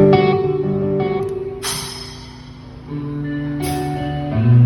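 Rock band playing at a sound check: guitar and bass holding chords that change every second or so, with three cymbal crashes.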